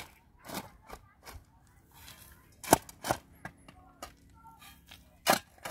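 About six sharp, irregular knocks, like a tool striking a hard material. The loudest come near the middle and about five seconds in.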